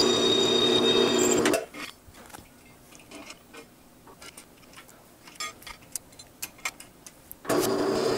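Drill press motor running with a steady hum while drilling aluminum plate; about a second and a half in it cuts off to a quiet stretch of scattered small clicks and knocks, and the running drill press comes back near the end.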